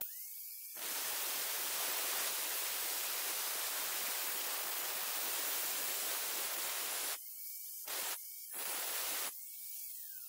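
Hitachi angle grinder with a dry diamond blade spins up with a quick rising whine, then cuts into the tile with a harsh, steady grinding noise for about six seconds. Two short touches of the blade on the tile follow, and near the end the grinder winds down with a falling whine.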